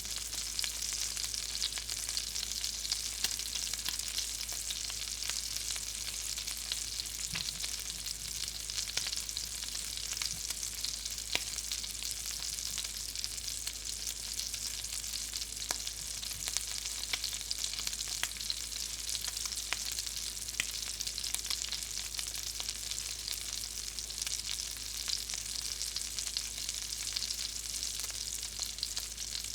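Hot grease frying: a steady sizzle with a dense scatter of small pops and crackles throughout.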